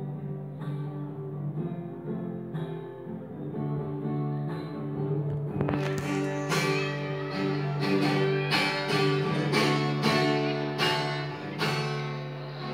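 Acoustic guitar strumming chords, soft at first, then louder with firmer, evenly spaced strokes from about halfway in.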